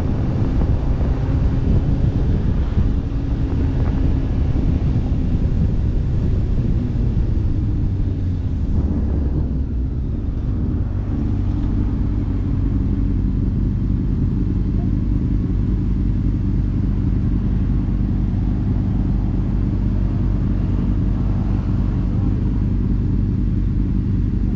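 Motorcycle engine running with wind noise while riding, then easing off about ten seconds in and settling to a steady idle.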